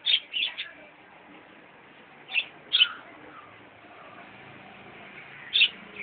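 Caged pet budgerigars chirping: three quick sharp chirps at the start, two more about halfway through, and one near the end.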